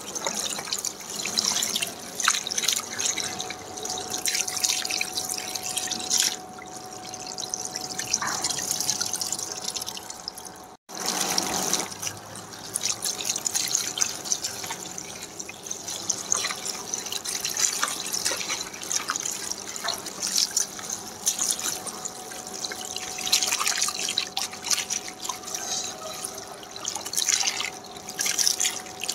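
Water splashing and trickling while raw chicken pieces are washed by hand, with irregular small splashes and drips; the sound cuts out for a moment about eleven seconds in.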